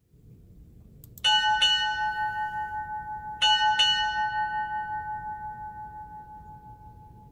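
A ship's bell struck four times in two quick pairs, 'ding-ding, ding-ding', each stroke ringing out and fading slowly.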